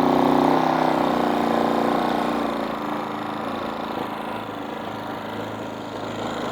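Air compressor running on power from a GENMAX GM3500Xi inverter generator, whose 145cc four-stroke OHV engine runs under the compressor and lighting load. The steady machine hum is strongest at first and grows gradually quieter after about two seconds.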